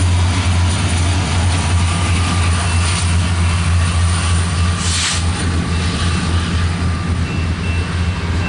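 BNSF helper diesel locomotives at the rear of a loaded coal train passing and pulling away, a loud steady low engine drone, with a brief rush of noise about five seconds in.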